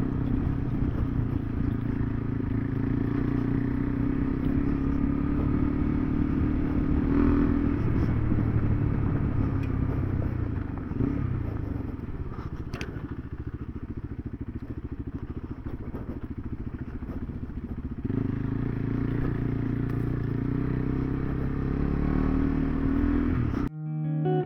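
KTM 390 Adventure's single-cylinder engine running steadily while riding a rough dirt road. The revs drop about eleven seconds in and pick up again around eighteen seconds. The sound cuts off abruptly just before the end.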